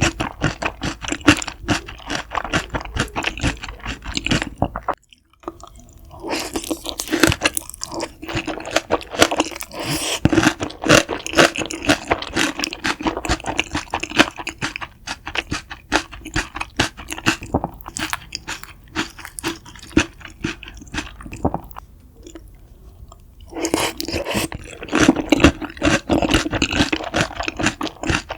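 Close-miked eating of crispy fried food: dense crackly crunching and chewing, mouth right at the microphone. It drops out suddenly about five seconds in and eases off briefly near the end before the crunching picks up again.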